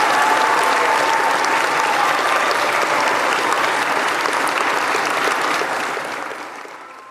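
Crowd applauding steadily, fading out over the last couple of seconds.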